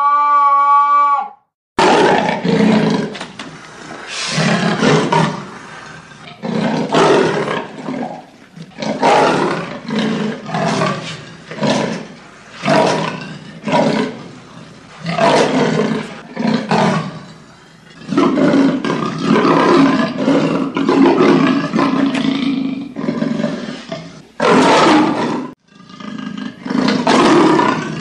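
Leopard roaring: a long series of loud, harsh calls, about one a second, with a longer unbroken stretch about two-thirds of the way through. A brief high pitched cry fades out just before the first call.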